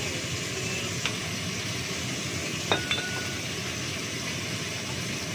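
Steady whir of a kitchen range-hood fan running. Sharp clinks of a glass bottle and dishes on the counter come about one second in, then twice more about three seconds in, the loudest ringing briefly.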